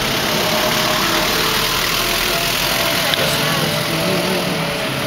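Ambulance van's engine running as it pulls away and drives off.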